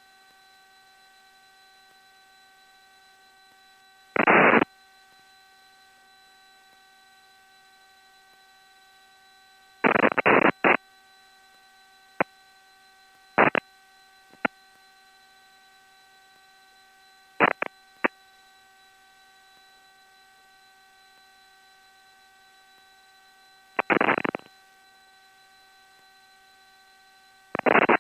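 Cockpit intercom and radio audio feed: a steady electrical hum of several fixed tones, broken every few seconds by short bursts of radio static, squelch breaks and clicks with no voice in them.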